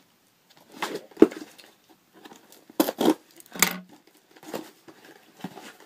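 Scissors slitting the tape on a cardboard shipping box and the box being worked open: a series of short scrapes, taps and cardboard rustles, with a sharp knock about a second in.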